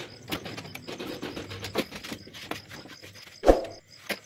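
Irregular clicks and light knocks of hand work with a screwdriver on gas spring hardware and a chipboard cabinet, with one louder thump about three and a half seconds in.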